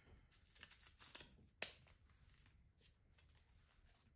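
Plastic wrap and tape being picked at and peeled off a small package: a few short crinkles in the first second and a half, a sharper snap about a second and a half in, then faint rustling.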